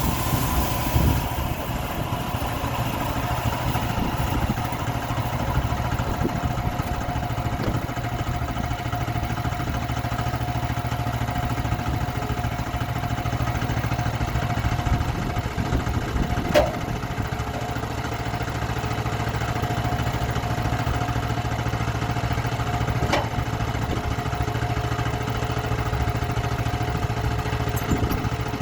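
Sawmill's engine running steadily as it saws through a log, with two sharp ticks partway through.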